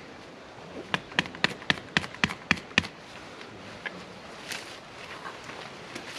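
A quick run of sharp knocks, about four a second, from about a second in until nearly three seconds in, then only a faint background hiss.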